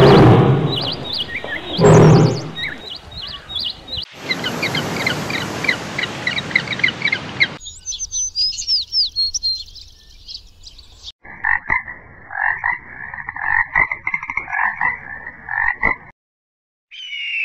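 A run of short animal-call clips: quick chirping calls over a loud rushing noise, then a rapid series of repeated croaking calls.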